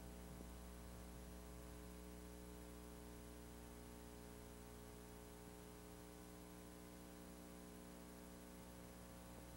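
Near silence with a faint, steady electrical mains hum and light tape hiss.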